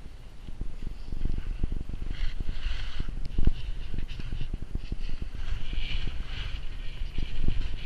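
Wind buffeting the camera microphone during a ski descent, with an uneven low rumble, over the scraping hiss of skis running on packed snow, which swells a couple of times.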